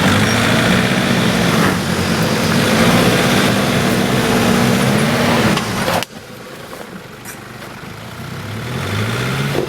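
Off-road 4x4's engine working under load as it crawls over rock, its revs rising and falling. The sound drops off abruptly about six seconds in, leaving a quieter engine whose revs climb near the end.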